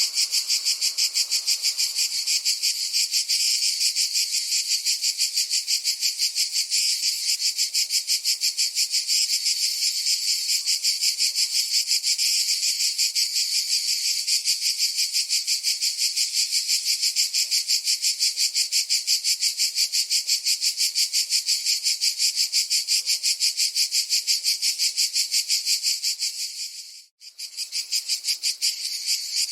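Cicadas singing: a loud, steady, high-pitched buzz made of rapid even pulses, broken by a brief dropout near the end before it resumes.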